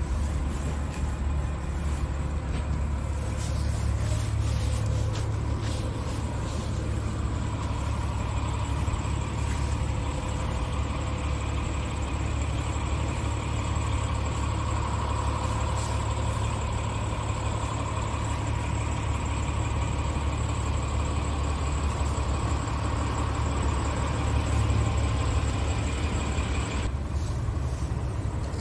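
Scania S tractor unit's engine idling steadily, a constant low drone.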